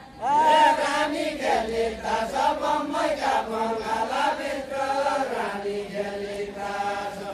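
A group of men singing a Deuda folk song together in a chant-like melody. The voices start about a quarter second in.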